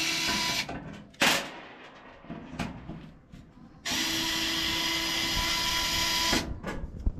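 Cordless drill/driver running in two steady runs of about two to three seconds each, backing out the screws that hold the dryer's front panel, with a sharp clack in the pause between them.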